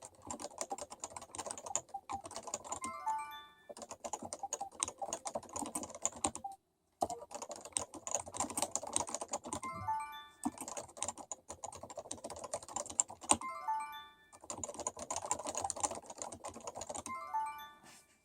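Fast typing on a Topre Realforce keyboard with 30 g electrostatic capacitive rubber-dome switches: dense runs of soft key thocks in bursts, with brief pauses between them. Four times a short run of quick beeping tones sounds over the typing.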